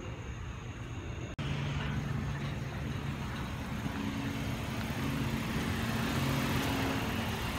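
A car engine idling close by, a steady low hum that comes in abruptly about a second and a half in.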